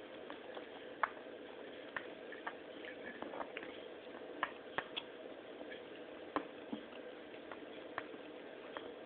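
Pets eating: irregular sharp little clicks and ticks, about one or two a second, over a faint steady hum.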